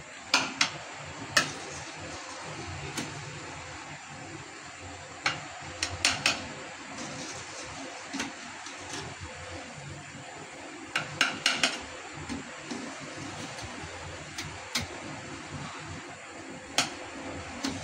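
A steel ladle clinks and knocks against a stainless steel pot and bowl as foam is skimmed off boiling sugar syrup. The sharp clicks come irregularly, some in quick clusters of two or three, over a steady hiss.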